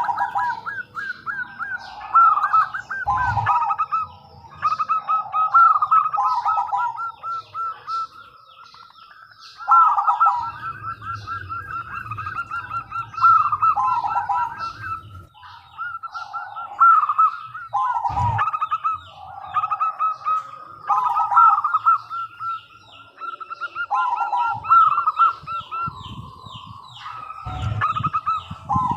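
Zebra doves (perkutut) singing: rapid, rolling, trilled cooing phrases repeated one after another every second or two, with phrases often overlapping.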